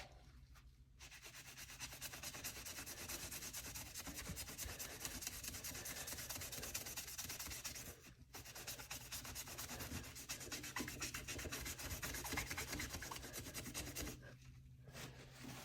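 A barely wet sponge loaded with Bar Keepers Friend powder scrubbing a Spyderco Endela's K390 steel blade in quick back-and-forth strokes, a gritty rubbing. The scrubbing starts about a second in, pauses briefly about halfway, then carries on until near the end.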